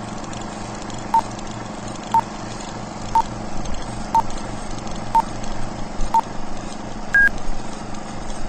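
Six short electronic beeps one second apart, then a single higher beep a second later, like a countdown, over a steady hum and hiss.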